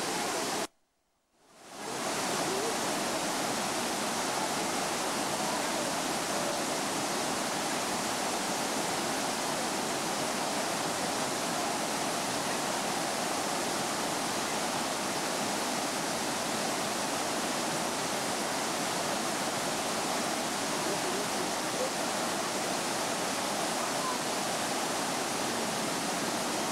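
Rushing water of a tiered waterfall cascading over rock ledges, a steady even rush. It cuts out for about a second near the start and then fades back in.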